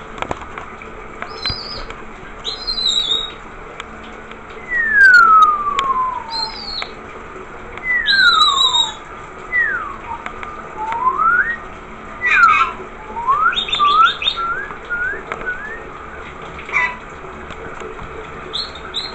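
Short high chirps from a rainbow lorikeet and a run of long whistles that slide down, then shorter ones that slide up, over the steady hiss of a running shower.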